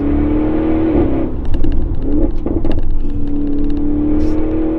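Audi RS6 Avant Performance's twin-turbo V8 accelerating through an Akrapovic cat-back exhaust. The engine note climbs, breaks off with a flurry of sharp pops and crackles about a second in and again around two and a half seconds in, then climbs steadily again.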